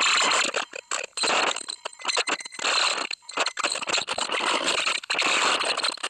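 Black MIDI piece played on a synthesized piano, with so many notes at once that they blur into a dense wash of noise. The wash stops and starts abruptly many times.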